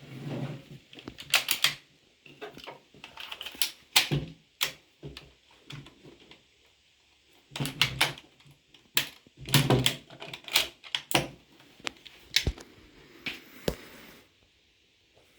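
Irregular clusters of sharp metallic clicks and clatter from the bolt of a .45 ACP Lee Enfield No.1 Mk III rifle being worked between shots. The clicks are loudest around the fourth second and again between about the eighth and eleventh seconds.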